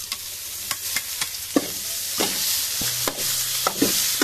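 Rice sizzling in a hot oiled steel wok as it is tipped in and stir-fried, with the metal spatula scraping and knocking against the wok many times. The sizzle grows a little louder about two seconds in.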